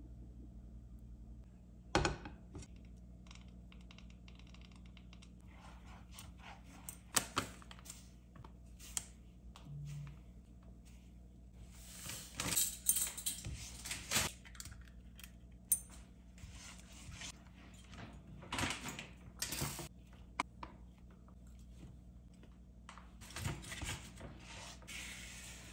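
Hands at work over a stone-coated frying pan: scattered clinks and taps of utensils against the pan, then a short hiss of sugar pouring from a metal measuring spoon about twelve seconds in. Near the end comes the scraping of a silicone spatula stirring cocoa into melted butter and egg.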